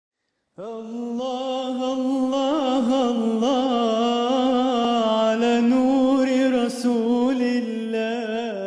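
A single voice chanting one long melody that wavers and ornaments in pitch, with no instruments, starting about half a second in.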